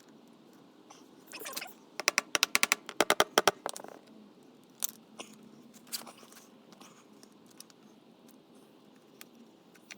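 Hand tools working metal engine parts: a quick run of sharp clicks about two seconds in, lasting under two seconds, then a couple of single knocks.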